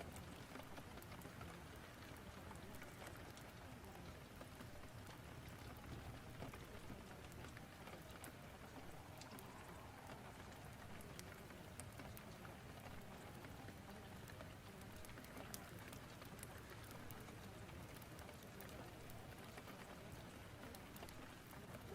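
Faint, steady rain storm ambience with scattered sharp crackles of a fireplace.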